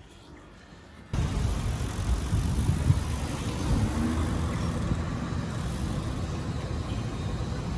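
Road traffic at a busy city intersection: a steady rumble of passing cars and buses that starts abruptly about a second in, with one short sharp knock about three seconds in.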